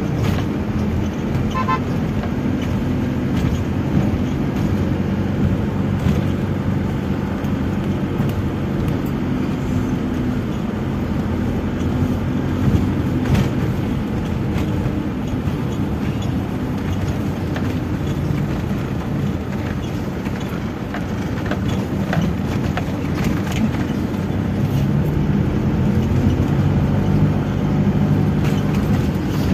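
Isuzu Panther's diesel engine and tyre noise droning steadily inside the cabin while it drives over a cracked, patched road, with scattered knocks and rattles from the rough surface.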